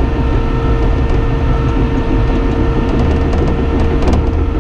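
Cat D5N XL crawler dozer heard from inside the cab, its diesel engine running steadily under load while the blade pushes dirt, with a steady whine over the engine drone.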